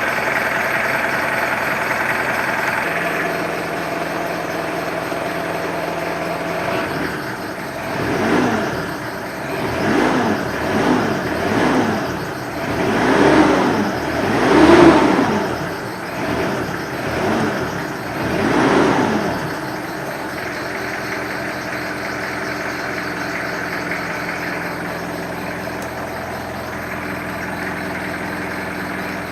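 Mitsubishi L200 pickup's diesel engine on its stock exhaust, idling, then revved in a run of about eight quick throttle blips, each rising and falling in pitch, before settling back to a steady idle for the last third.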